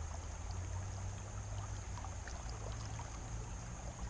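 Steady rush of a creek running high around a wading angler: an even wash of water with a low rumble underneath and faint scattered ticks and splashes.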